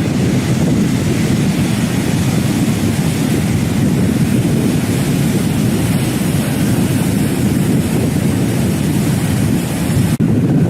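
Wind buffeting the microphone outdoors on the coast, a steady loud rumble; the higher hiss drops away abruptly about ten seconds in.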